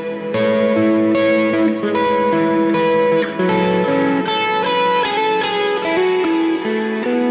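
Electric guitar played through a Line 6 POD X3 Live multi-effects unit set to a heavy, exaggerated reverb: a melodic line of single notes, each ringing on into the next.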